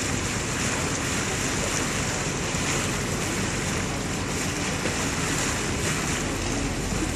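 Steady rush of wind and water past a moving cruise boat, with wind buffeting the microphone and a low, even rumble underneath.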